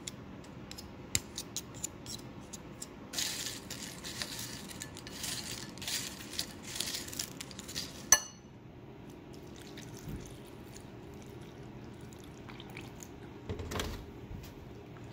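Metal spoon stirring dry, peanut-butter-coated cinnamon cereal squares in a ceramic bowl: clinks of the spoon on the bowl and a crackly rustle of the cereal pieces, with one sharp clink about eight seconds in, after which it goes quieter.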